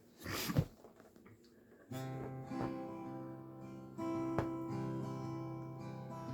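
A short noisy bump, then acoustic guitar chords strummed from about two seconds in, the intro to a sung song.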